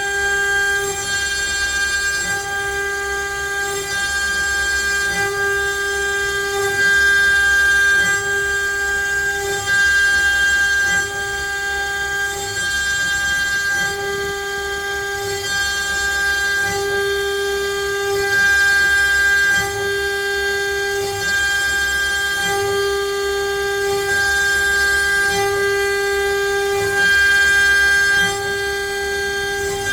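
CNC router spindle running with a steady high whine while the bit cuts letters into pine wood. Louder stretches come and go every second or two as the cut goes on.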